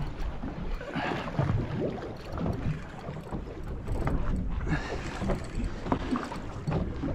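Choppy sea water slapping and sloshing against a small boat's hull, with irregular small knocks and wind buffeting the microphone.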